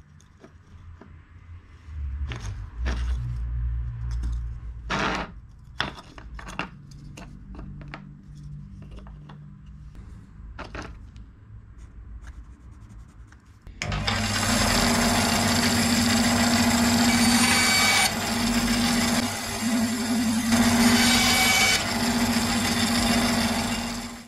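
Scattered knocks and clicks of wood and tools being handled, then, a little over halfway through, a power tool starts and runs steadily on wood for about ten seconds, with a couple of short dips in its level.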